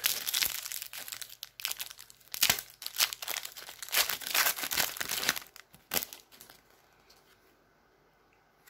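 A trading-card pack wrapper being torn open and crinkled by hand, a dense crackling for about six and a half seconds that then stops.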